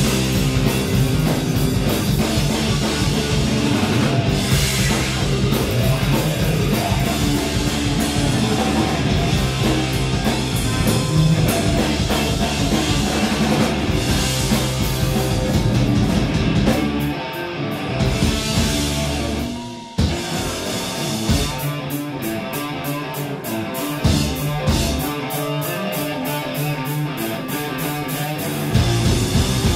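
Heavy rock band playing live and loud: electric guitar, electric bass and a drum kit. About two-thirds of the way through, the music drops away for a moment, then comes back in sparser, with sharper separate drum hits.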